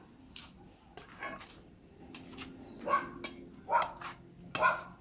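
A dog barking, three short barks evenly spaced in the second half, with a few light clicks before them.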